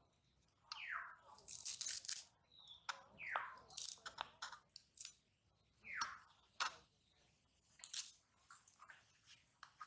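Fresh coriander being chopped by hand against an upright boti blade: clusters of crisp crunching cuts through the stems. Three times a short falling whistle-like tone sounds among the cuts.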